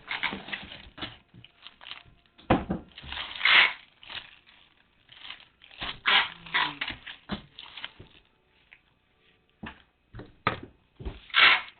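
Parcel packaging being handled and opened: irregular rustling, crinkling and tearing of plastic wrap, tape and cardboard, with a short lull past the middle.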